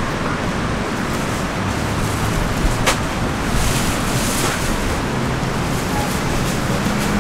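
Steady noise of sea surf and strong wind, with wind rumbling on the microphone; a single sharp click about three seconds in.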